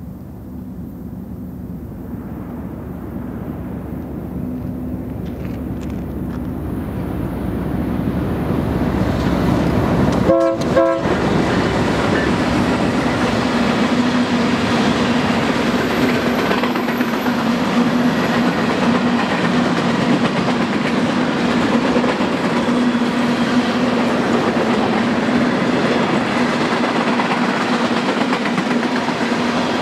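GE ES44DC diesel locomotive leading a freight train, its engine and wheels growing louder as it approaches, with a brief horn sound about ten seconds in. Then the steady rumble and clickety-clack of freight cars rolling past.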